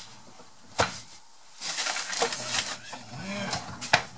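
Household handling noises: two sharp knocks about three seconds apart, the second louder, with rustling and light clatter between them as things are moved and put away by hand.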